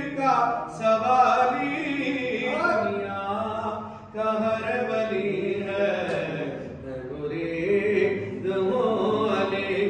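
A man's voice chanting a manqabat, an Urdu devotional praise song for Imam Ali, in long melodic phrases with a short break about four seconds in.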